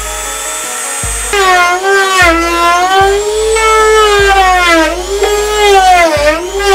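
A Dremel 200 rotary tool in a 3D-printed router jig runs with a loud, high whine that starts about a second in. Its pitch sags and recovers several times as the bit cuts around the edge of a speaker-box hole. A music beat thumps underneath.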